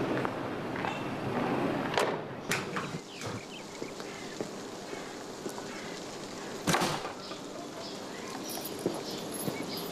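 A heavy wooden door thuds shut about seven seconds in, the loudest sound, after a sharp knock about two seconds in. Light footsteps on a paved path follow.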